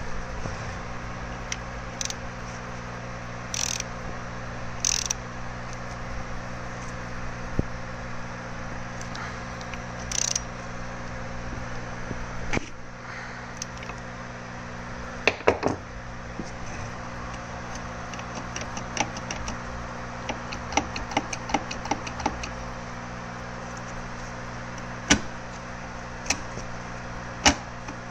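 Scattered metallic clicks and knocks from tools and parts being handled on a manual transmission casing, over a steady low hum. A run of quick ticks comes about two-thirds of the way in, and there are a few short hissy scrapes earlier on.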